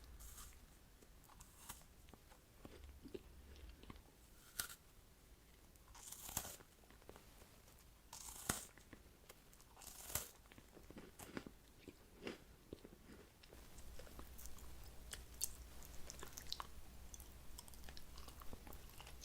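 Close-miked chewing and biting of gummy jelly candy and dried fruit: wet, sticky mouth clicks between a few louder crunchy bites spaced roughly two seconds apart.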